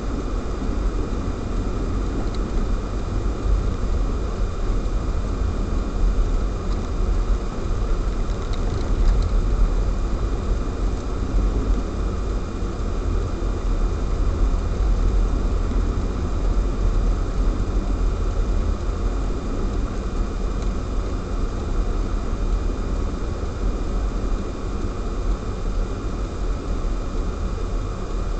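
Steady low rumble of a car driving on a snow-covered road, heard from inside the cabin through a dashcam, with a faint constant high whine over it.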